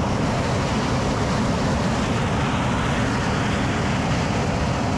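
Steam venting forcefully from a geothermal fumarole (ausol): a steady, loud rushing hiss.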